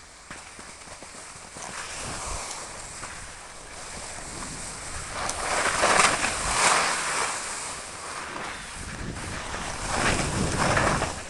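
Skis hissing and scraping over rough, crusty snow, in surges that are loudest around the middle and again near the end, with wind buffeting the microphone.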